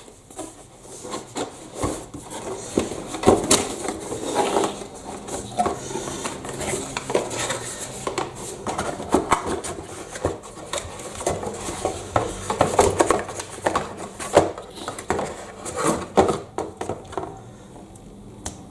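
Unboxing handling noise: irregular knocks, clicks and rubbing as the parts and packaging of a microphone kit are taken out and turned over by hand.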